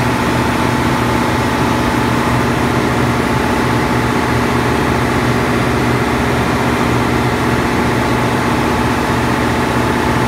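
Steady, loud din of a ship's engine room: diesel machinery running without change, with a constant humming tone under it.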